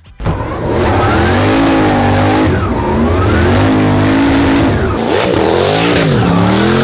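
Twin-turbo LSX V8 in a Nissan Silvia S14 drift car, revving hard at high load. It starts abruptly just after the opening, and its pitch swings up and down again and again as the throttle is worked.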